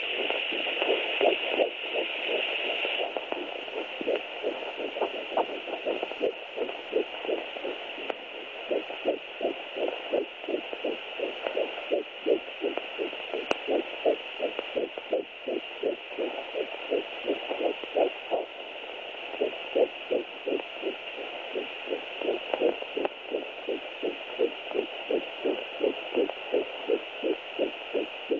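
Fetal heartbeat picked up by a home fetal Doppler and played through its speaker: fast, regular pulses about two and a half a second over a steady hiss, coming through strong.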